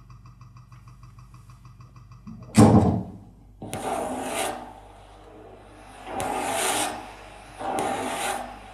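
Saxophone-and-percussion duo playing a contemporary piece. A faint quick pulsing sits over a low hum, then one loud low thump comes a little over two seconds in. Three rasping, breathy noise swells follow, each lasting under a second.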